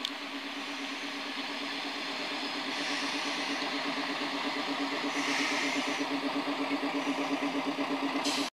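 Diesel engine of a ČD class 810-type railbus running with a steady, pulsing throb. It grows steadily louder as the railcar comes up to and alongside the platform.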